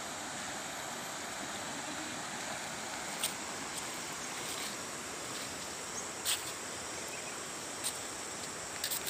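Shallow, stony river flowing: a steady rush of water, with a few short sharp clicks scattered through it.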